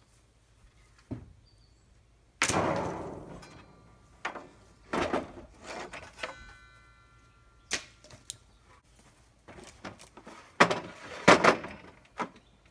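A series of separate knocks and thuds with no saw running. The loudest comes about two and a half seconds in and fades slowly, a faint thin ringing follows a few seconds later, and a quick cluster of sharp knocks comes near the end.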